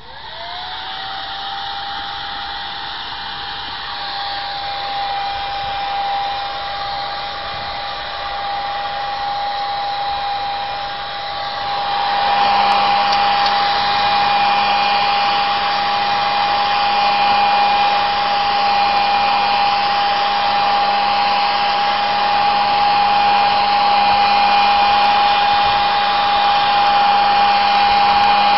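Hair dryer switched on and running with a steady whine and hiss, heating a dented car panel. It spins up to speed at the start and gets louder about twelve seconds in.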